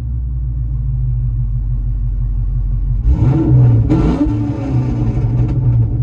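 Modified car exhaust idling, then revved once about three seconds in, the pitch rising and sliding back down to idle.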